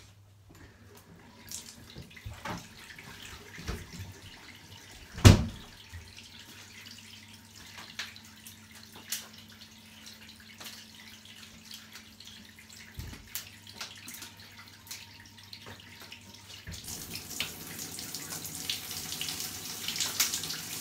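Bath tap running water into an empty bath, faint at first and much louder from about three-quarters of the way through. A single sharp knock about five seconds in, with small clicks of handling around it.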